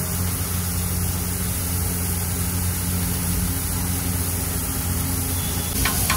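Steady low motor hum under an even hiss of chicken patties and buns frying on a large flat griddle, with a brief sharp sound near the end.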